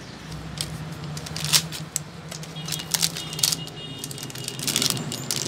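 Plastic packaging crinkling and crackling in irregular bursts as it is handled and opened, over a steady low hum.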